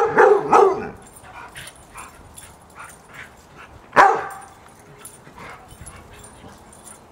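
Large adult dog barking at a playful puppy: a quick run of barks in the first second, then one more loud bark about four seconds in.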